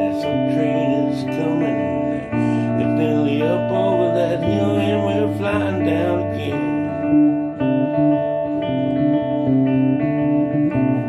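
Two guitars, at least one of them electric, playing a tune together: held chords over a low note that changes every second or two. A wavering melody line rides over them until about six and a half seconds in.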